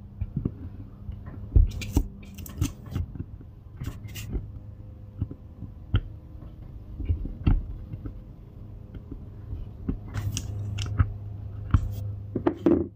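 Hand work on an RV slide-out's rubber seal: scattered clicks, scrapes and crinkling as the old seal and its 3M tape are pulled and pried loose. A steady low hum runs underneath.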